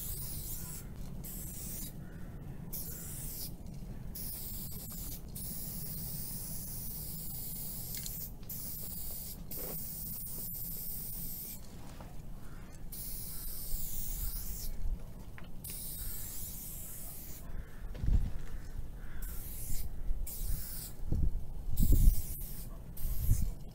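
Aerosol spray paint can spraying in repeated bursts of hiss, each lasting up to a couple of seconds with short pauses between. A few low thuds come near the end.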